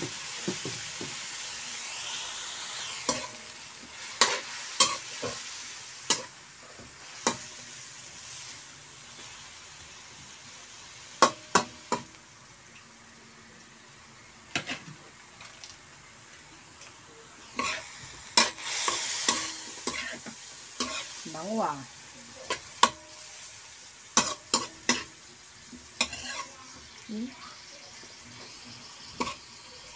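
Vegetables sizzling as they stir-fry in a pan, with a metal spatula repeatedly scraping and knocking against the pan as they are tossed. The sizzle is strongest at first and dies down after the first several seconds. The sharp knocks of the spatula are the loudest sounds.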